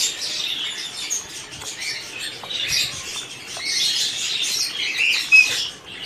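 Small birds chirping and chattering continuously, with one sharper call near the end, over the wet splashing of a hand mixing plaster of Paris and water in a plastic bowl.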